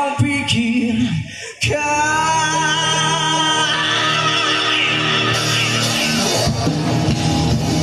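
Live rock band playing through the stage PA, with drums, electric guitars, bass and keyboard under a male singer. After a few sharp drum hits in the first couple of seconds, the singer holds one long wavering note, and the band plays on.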